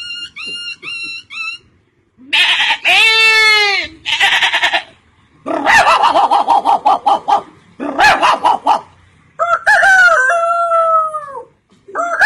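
A man imitating animal calls one after another with his voice: a quick run of short repeated chirps, then a rooster's crow and clucking, then a long wavering, sliding howl near the end.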